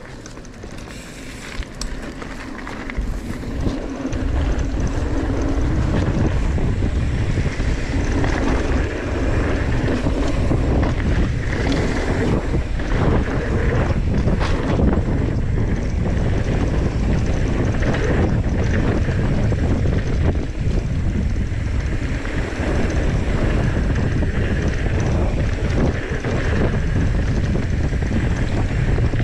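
Wind buffeting a handlebar-mounted camera's microphone and mountain-bike tyres rolling over a dirt trail at speed, with the bike clattering over bumps. Quieter for the first few seconds, then a steady rush.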